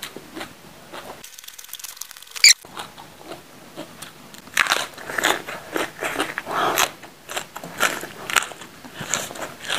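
Raw green bell pepper being bitten and chewed: a sharp snap a little over two seconds in, then a run of crunches that grows denser from about halfway on.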